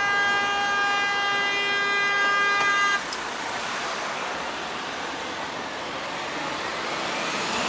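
A vehicle horn sounds one steady, unbroken note for about three seconds and then cuts off suddenly. It leaves a steady hiss of traffic and running engines.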